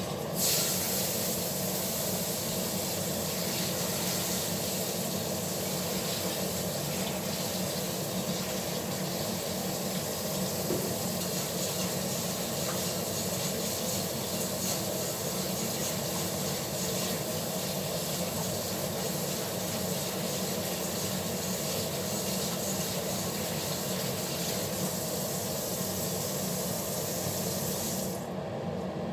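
Kitchen tap running in a steady rush for almost half a minute, then shut off abruptly near the end.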